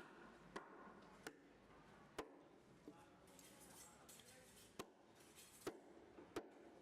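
A blade chopping through fish on a cutting block: about seven sharp, irregular chops, with faint voices in the background.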